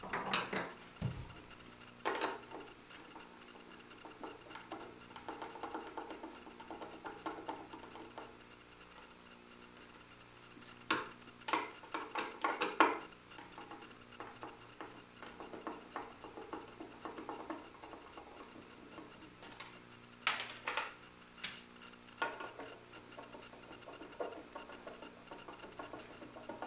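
Small brass hinge and latch hardware being unscrewed from a wooden chest with a hand screwdriver: scattered metallic clinks and scrapes of tool, screws and fittings, bunched in two flurries about eleven and twenty seconds in, over a faint steady hum.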